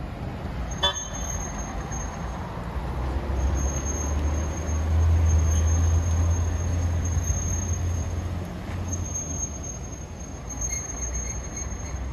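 Historic electric tram running along street rails amid road traffic: a low rumble swells through the middle and fades. A sharp metallic click with a brief ring comes about a second in, and a thin, steady high whine starts about three seconds in.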